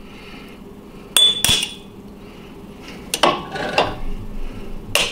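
A tool tapping the glass envelope of a 5R4 rectifier tube to crack it along a scored line: a few sharp clinks, mostly in pairs, the first ringing briefly.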